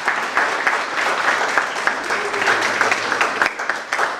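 Audience applauding: many people clapping together in a steady patter of hand claps.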